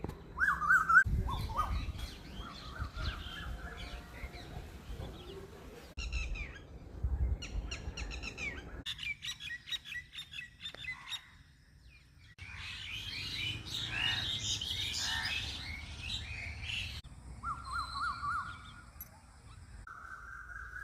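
Small birds chirping and singing: many short, quick calls and trills of several kinds. The sound changes abruptly every few seconds, as if separate recordings were joined.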